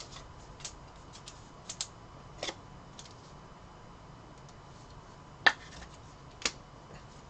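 Trading cards being handled on a table: scattered light clicks and taps, with two sharper taps about a second apart in the second half.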